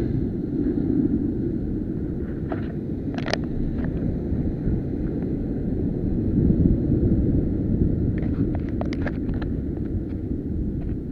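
Wind rumbling on the microphone over surf breaking against rocks, a steady low roar. A few short sharp clicks come about three seconds in and again at around eight to nine seconds.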